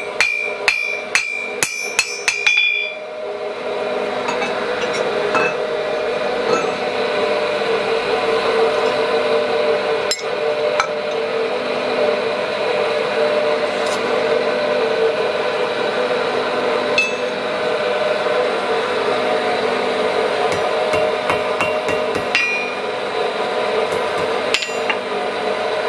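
Blacksmith's hammer striking hot iron on an anvil while forging a nail: a quick run of ringing blows, about two or three a second, for the first few seconds. Then a steady blowing hum takes over, with a few light isolated taps and clinks of metal.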